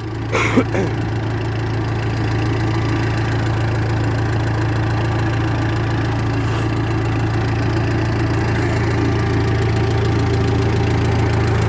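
Massey Ferguson MF30 backhoe loader's Perkins diesel engine idling steadily, purring smoothly while it warms up after a cold start. A brief knock sounds about half a second in.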